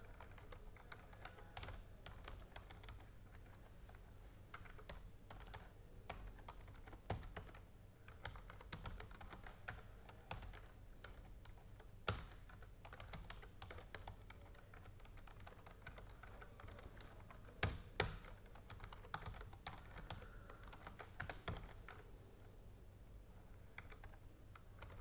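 Computer keyboard typing: faint, irregular key clicks with a few sharper keystrokes scattered through.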